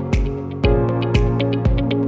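Electronic background music with a steady kick drum about twice a second, hi-hats and held synth chords.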